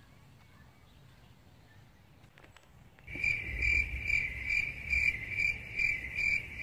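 Cricket chirping, a regular pulsed chirp about two and a half times a second, cutting in suddenly about three seconds in after near silence.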